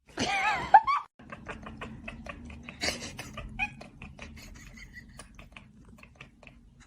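A cat's wavering, drawn-out meow in the first second, then a couple of shorter calls around three seconds in, over a low hum and a run of small clicks and taps.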